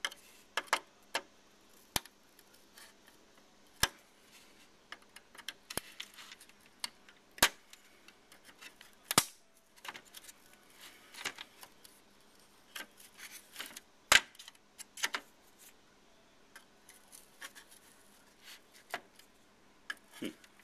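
Irregular sharp clicks and scrapes of a tool working at a stuck chip on a computer circuit board, trying to pry it out of its socket, with several louder snaps spread through.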